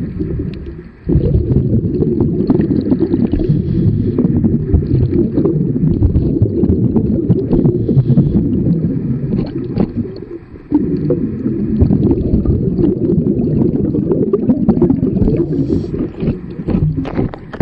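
Underwater rumbling and gurgling of a scuba diver's exhaled bubbles from the regulator, a dense low rumble that breaks off briefly twice, about half a second in and about ten seconds in, as the diver inhales.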